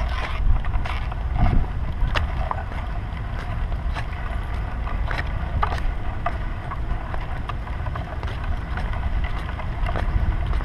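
Stroller rolling over parking-lot asphalt. The wheels give a steady low rumble, and the frame makes frequent small rattles and clicks.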